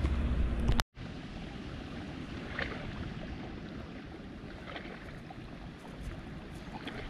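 Wind rumbling on the microphone, cut off abruptly just under a second in. After that, softer steady wind and lake-water noise with a few faint, short, high chirps.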